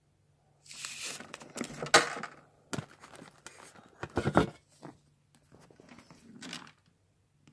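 Handling noise from a handbag and its plastic and paper wrapping being moved about: rustling and crinkling in several bursts, with a sharp knock about two seconds in and a few more around three and four seconds in.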